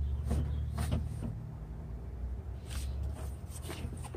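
A Freightliner truck's windshield wiper arm being worked by hand on its pivot, giving a few light clicks and knocks in the first second and again near the end, over a steady low rumble.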